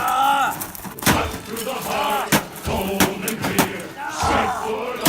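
Heavy hand-tool blows smashing a microwave oven, about five hard hits, with excited yelling between them.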